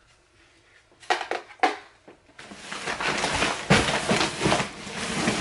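Rummaging through stored items by hand: two short clattering knocks a little after a second in, then continuous rustling and clattering of things being moved about from about halfway on.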